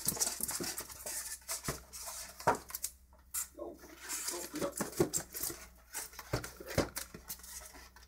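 Polystyrene foam packaging being lifted and handled: irregular rubbing and scraping with a scatter of light knocks.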